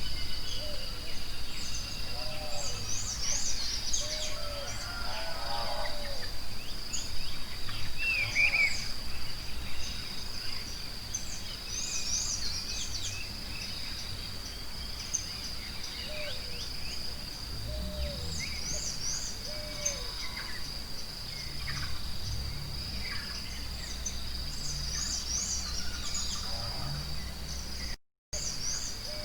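Forest ambience: many birds chirping and calling over a steady, high-pitched insect drone, with a low rumble underneath. The sound drops out briefly near the end.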